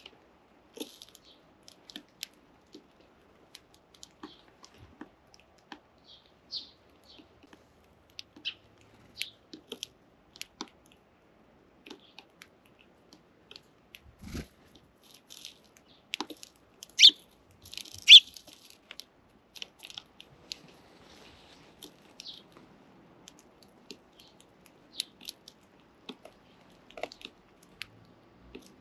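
Sparrows pecking and cracking seed close to the microphone: an irregular scatter of small ticks and crunches, with two louder ones just past the middle.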